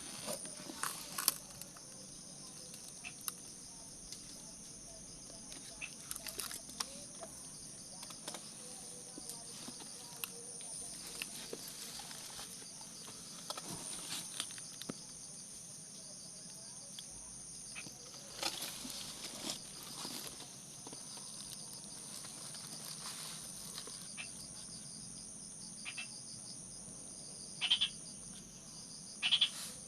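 Steady high-pitched chorus of insects such as crickets, with scattered small crackles and clicks throughout and two louder short scratchy noises near the end.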